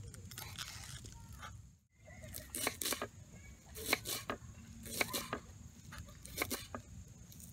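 Kitchen knife chopping garlic chives on a wooden cutting board: the blade knocks down through the leaves onto the board, mostly in quick pairs about once a second.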